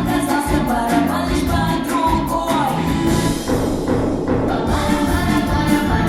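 Upbeat pop dance music with a steady beat, played over a concert hall's sound system.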